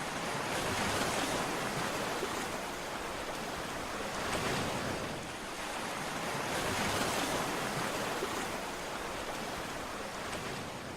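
Sea surf: waves washing onto the shore, swelling and easing every few seconds.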